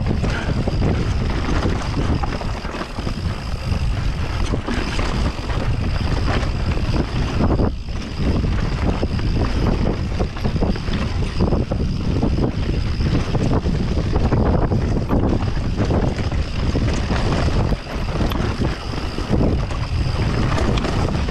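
Wind rushing over the microphone of a camera on a mountain bike descending a dirt trail at speed, with tyre roar and the bike knocking and rattling over bumps.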